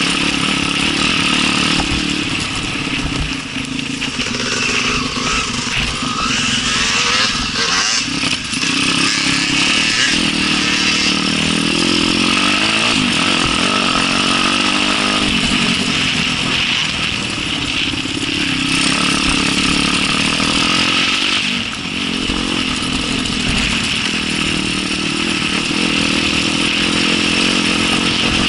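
Small off-road motorcycle engine running while riding, its revs rising and falling over and over as the throttle is worked, with a few brief drops when the throttle is closed.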